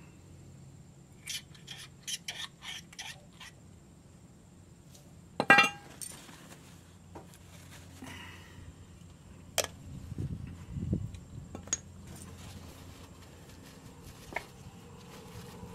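Metal-on-metal clinks and taps from handling steel brake caliper parts and slide pins: a quick run of light clinks, then one loud ringing clank about five and a half seconds in, and a few scattered taps and a dull knock after it.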